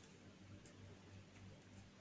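Near silence: faint room tone with a low hum and a few faint ticks.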